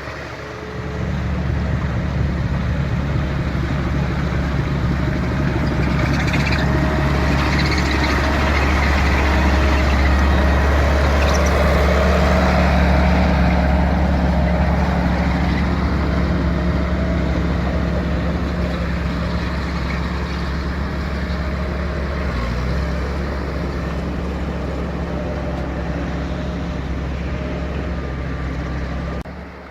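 Engine of a tracked Avant compact loader running steadily. It picks up about a second in, is loudest around the middle, eases a little, and stops abruptly near the end.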